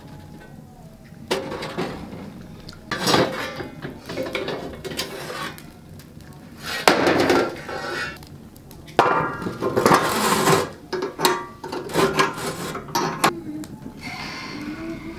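Metal tongs clanking and scraping against an iron wood stove while stirring the coals, with knocks from a stone pot's lid: a series of clanks and scrapes, loudest about seven and ten seconds in.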